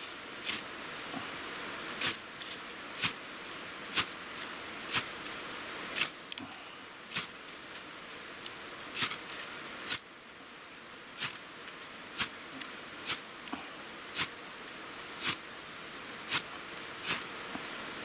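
A ferrocerium fire-starter rod being struck with a metal striker to throw sparks onto dry leaves: a sharp scrape about once a second, with a short pause around the middle. The leaves are ones thought to be damp, so they are slow to catch.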